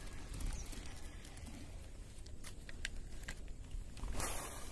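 Outdoor wind rumble on the microphone, with a few faint scattered clicks in the middle and a short burst of rustling noise about four seconds in.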